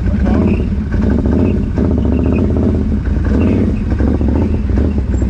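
ATV engine running under throttle during an off-road ride, loud and steady with small dips in load.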